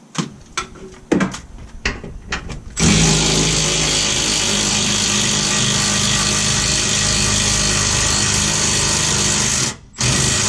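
A handheld power tool running steadily for about seven seconds, stopping briefly, then running again as it spins out a fuel-tank strap bolt. A few knocks and clanks come before it starts.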